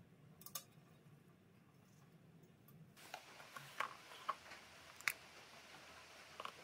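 Faint clicks and light knocks from handling a 3D printer's small built-in tool drawer as it is slid open, with pliers and spare parts shifting inside. There is one click about half a second in, and the string of clicks begins about three seconds in.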